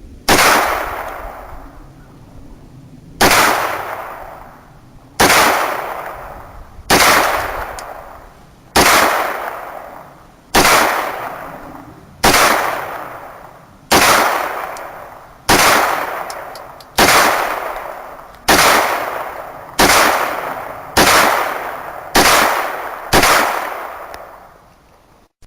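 Taurus 9mm pistol fired fourteen times at a slow, steady pace, a shot every second and a half to two seconds. Each report echoes and dies away before the next.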